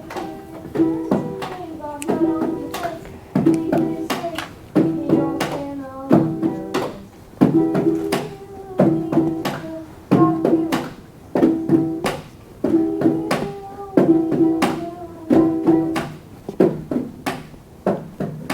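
Ukuleles strummed in a repeating chord pattern, with a sharp strum about every two-thirds of a second, played by a group of beginners as a simple song.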